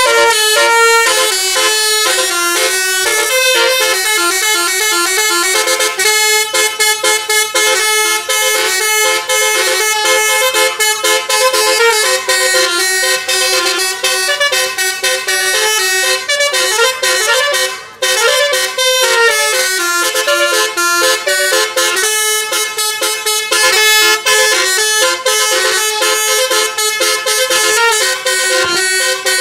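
Bus musical air horn ('basuri' telolet) playing a long, fast melody of stepping notes at full volume, with one short break about 18 seconds in.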